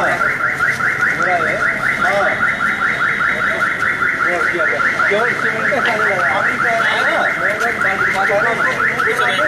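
An electronic alarm sounding continuously: a rapid, steadily repeating upward-sweeping chirp, the loudest sound, with people's voices talking beneath it.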